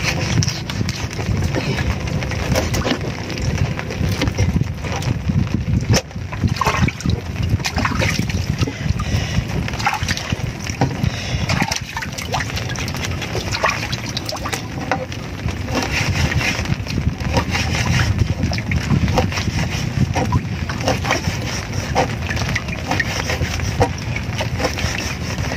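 Water sloshing and lapping against the hull of a small boat, a continuous low rumble with scattered short knocks and taps over it.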